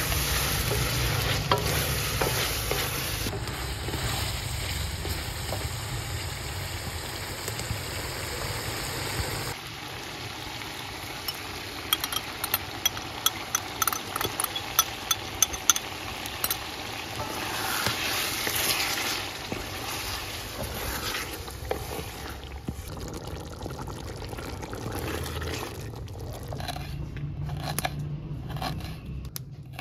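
Chicken frying and sizzling in a steel karahi while a wooden spatula stirs it, with a run of sharp knocks and scrapes of the spatula against the pan partway through. Near the end, a knife slicing through ginger on a cutting board in quick, even strokes.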